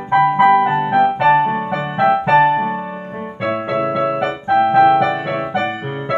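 Piano accompaniment playing a lively instrumental break between verses of a children's song: repeated short chords over a bass line, about two to three notes a second.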